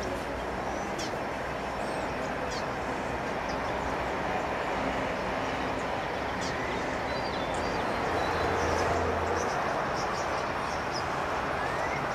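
Steady background rumble of city traffic, with short, high bird chirps now and then.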